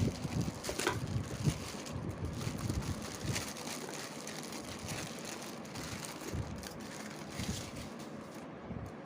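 Hands working on a laptop during a keyboard replacement: irregular light knocks, clicks and rustling, busiest in the first couple of seconds.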